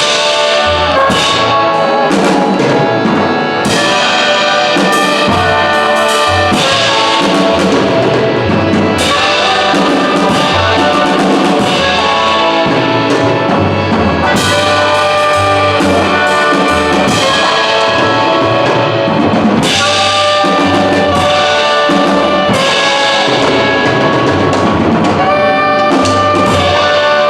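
Live band music: brass instruments and a drum kit playing an instrumental passage with a steady beat.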